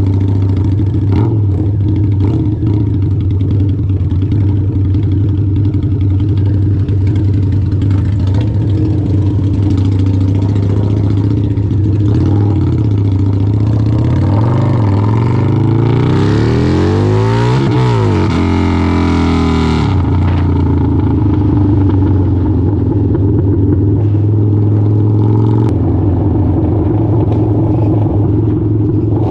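Harley-Davidson V-Rod's V-twin engine idling steadily, with a second engine's pitch sweeping up and down about halfway through.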